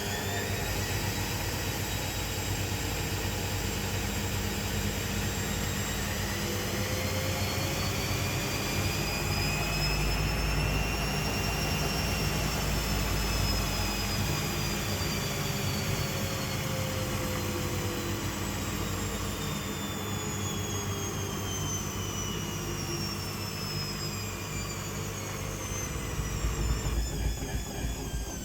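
Washing machine on its spin cycle, loud: the motor's whine rises in pitch over the first half and then falls away, over a deep rumble that swells in the middle and again, unevenly, near the end.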